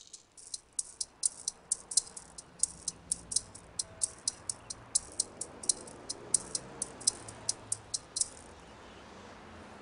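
A run of short, sharp, high-pitched clicks, about three or four a second and somewhat uneven, that stop a little after eight seconds in.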